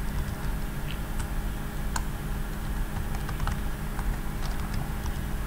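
Computer keyboard typing: a handful of irregular keystrokes over a steady low hum.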